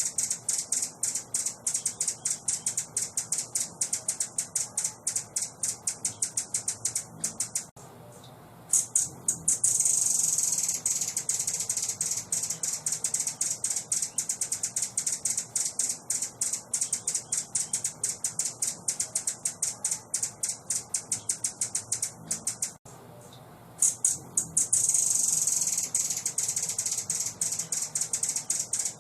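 A songbird's rapid, high-pitched chattering song of fast sharp clicking notes, breaking off briefly about eight seconds in and again near the end, each time resuming with a loud dense trill that slips back into clicks. The same passage repeats, as a looped masteran recording for training caged songbirds.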